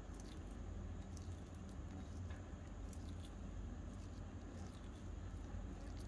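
Faint small clicks, ticks and soft squishing as a chunky filling is mixed in a miniature bowl, over a low steady hum.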